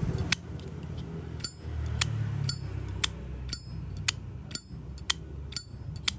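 Zippo lighter lid flicked open and snapped shut over and over, about two sharp metallic clicks a second, each with a brief ringing chink. The sound is judged good, though a screw in the lighter's action is set too stiff.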